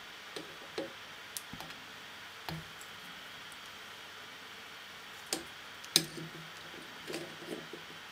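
Scattered faint clicks and ticks of fingers and a whip-finish tool working tying thread at a fly-tying vise, with a sharper click about six seconds in, over a steady low hiss.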